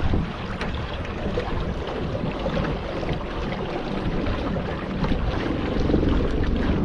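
Wind buffeting the microphone over the steady rush of water around a small boat on the river, with a few small knocks.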